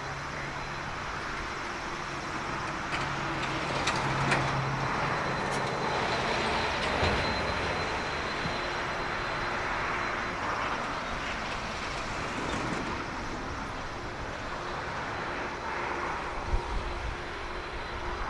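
Boeing 767-300ER's twin turbofan engines at taxi power as the jet lines up for takeoff: a steady jet rumble with a thin high whine, swelling a few seconds in and easing off again.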